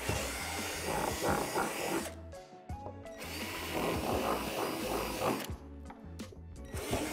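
Cordless drill with a 3/8-inch bit boring out divots in the back of a plastic rock-wall panel, in three bursts of a couple of seconds each with short pauses between.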